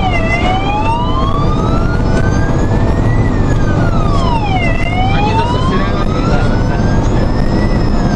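Fire engine's wailing siren heard from inside the cab: a slow rise for about three seconds, then a quicker fall, repeating about every four and a half seconds, over the truck's steady engine and road rumble.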